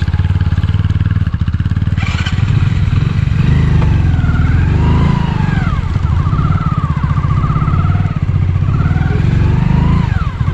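Motorcycle engine running under load as it is ridden, its pitch rising and falling with a wavering higher whine over it.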